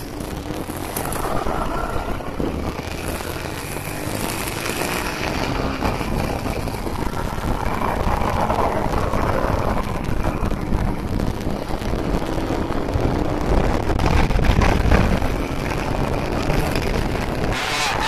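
Honda CBR150R's single-cylinder engine revving as the motorcycle accelerates, under heavy wind noise on the microphone that grows as speed builds.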